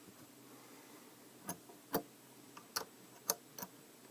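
Relays in a homemade amplifier switch box clicking unevenly, about six sharp clicks, as the box switches between its amplifier inputs. A faint hum runs underneath. The owner puts the box's trouble down to a faulty power supply.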